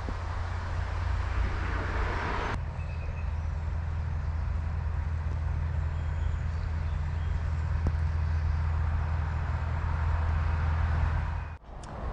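Narrowboat diesel engine running steadily with a low hum while cruising. A rushing hiss over it stops abruptly about two and a half seconds in.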